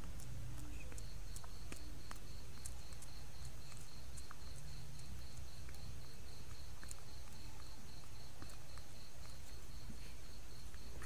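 An insect chirping steadily, a high even pulse repeating about two to three times a second, over a constant low hum, with faint scattered clicks.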